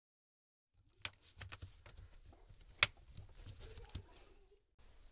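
Handling noise from a laptop keyboard stripped of its keycaps: fingers pressing and rubbing over the bare metal backplate, giving scattered light clicks and rustling that begin about a second in, with one sharp click near the three-second mark.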